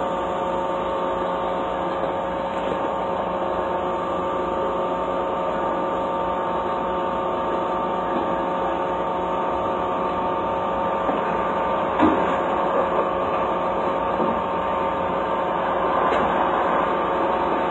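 Steady mechanical hum with several fixed tones, unchanging in level, with a short knock about twelve seconds in.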